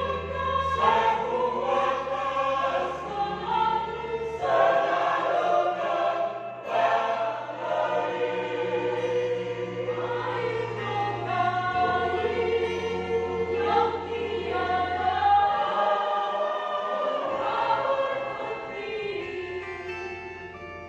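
Church choir singing in parts, with sustained low notes held beneath the voices; the sound trails off near the end.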